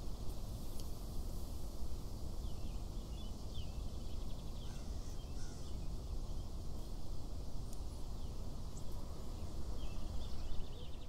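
Outdoor nature ambience: a steady low rumble with small birds chirping here and there.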